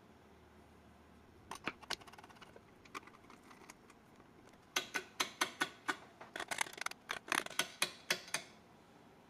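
Metal guide rods and fittings of a Wicked Edge Gen 3 Pro knife sharpener being handled, clinking and clicking. A few separate clicks come first, then a quick run of sharp metallic clicks from about halfway through.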